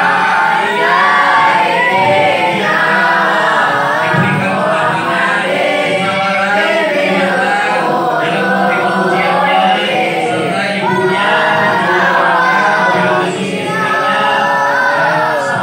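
A group of voices chanting an Islamic tawasul prayer together in a melodic unison, led over a microphone.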